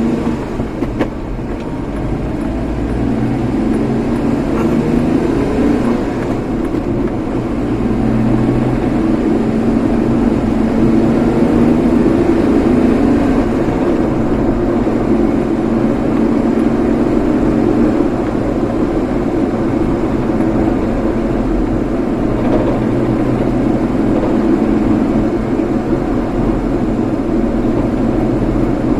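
A vehicle on the move: steady engine and road noise that grows louder over the first several seconds, then holds.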